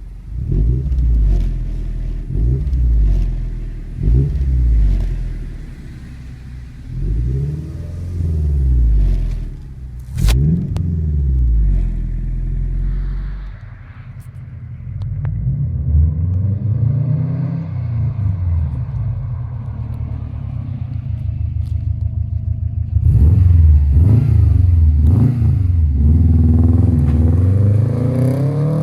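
Subaru Impreza WRX STI's turbocharged flat-four boxer engine heard through its exhaust, revved in a series of short blips that each rise and fall for the first half. There is a single sharp crack about ten seconds in. After that the engine runs more steadily with slower swells in pitch and gets louder near the end.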